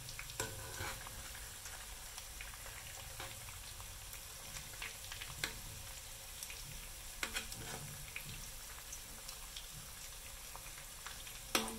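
Batter-coated rice balls (namungodi) deep-frying in oil in a metal pot on their second fry, a steady sizzle. A metal spoon turning them clinks against the pot a few times.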